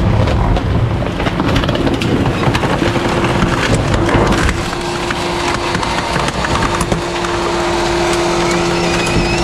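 Rear-loading garbage truck running with a steady hum from its engine and hydraulics, with scattered cracks, knocks and clatter as a couch is heaved into the hopper on top of chairs.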